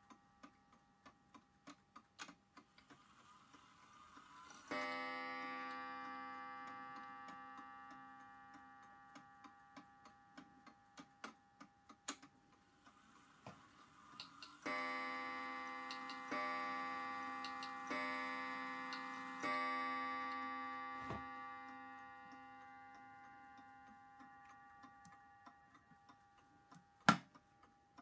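Garrard 14-day mantel clock ticking steadily. Its striking train whirs up and strikes once on its gong for the half hour about five seconds in, then whirs again and strikes four o'clock: four strokes about a second and a half apart, each left ringing. Near the end, a single sharp click as the hinged glass bezel is snapped shut.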